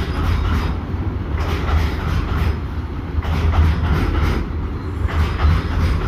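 Freight train of BTPN bogie tank wagons rolling past close by: a steady low rumble, with the clatter of wheels coming round again every second or two.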